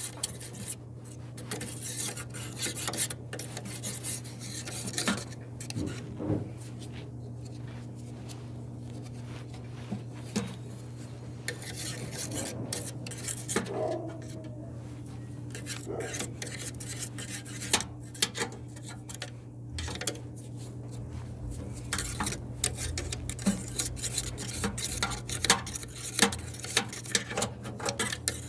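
Irregular scraping, rubbing and clinking of metal tools on a dryer's blower parts, over a steady low hum.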